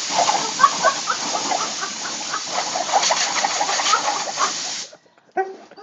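Compressed air hissing from an air-compressor blow gun nozzle, cutting off about five seconds in and giving one more short blast just after. Short high squeaky whines from an excited dog come through over the hiss.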